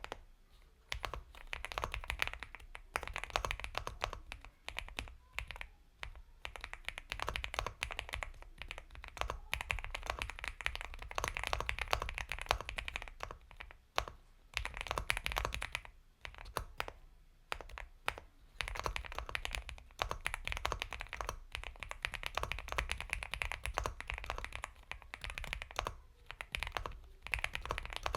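Typing on an Epomaker x Feker Galaxy 80 mechanical keyboard with Gateron Milky Yellow Pro linear switches: a fast, continuous run of soft, creamy keystrokes, broken now and then by brief pauses.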